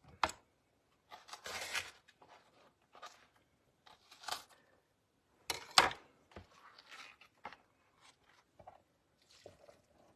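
Kitchen handling noises from rolling stuffed cabbage: irregular rustling, scraping and crinkling. The loudest is a sharp crack just under six seconds in.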